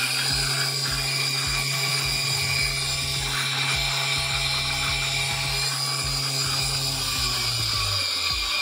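Tabletop T.K. Homodisper high-speed disperser running, its motor giving a steady high-pitched whine over a low hum; the low hum drops away near the end.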